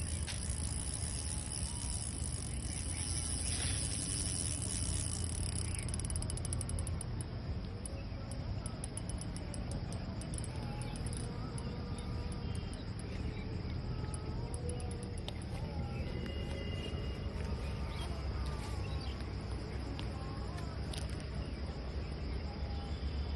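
Insects, crickets or similar, calling with a continuous high-pitched trill that breaks into rapid pulsing about seven seconds in. Under it runs a steady low rumble.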